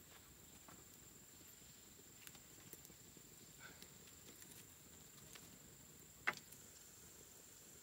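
Small wood fire crackling quietly, with a few scattered small snaps and one sharp, louder snap a little after six seconds in, over a faint steady high-pitched whine.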